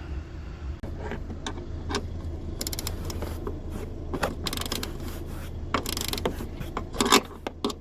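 Ratchet spanner clicking in short quick runs, with scattered metal knocks, as the nuts on a car's gas boot strut mounts are worked.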